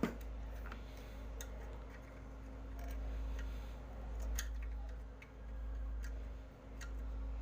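Hand tools clicking and tapping against the metal parts of a window air conditioner's fan motor assembly as its fasteners are loosened: about seven sharp, irregular clicks over a steady low hum.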